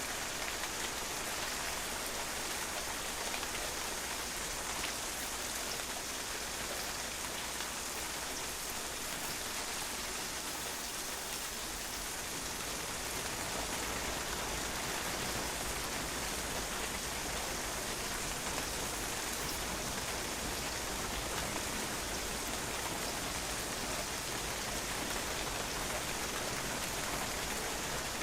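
Steady rain falling on a patio, with drops splashing on the hard surface; an even hiss that doesn't change.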